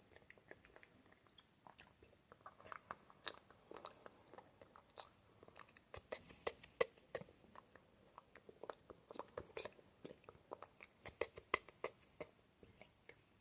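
ASMR mouth sounds: quick, irregular wet clicks and smacks of the tongue and lips, coming in dense clusters.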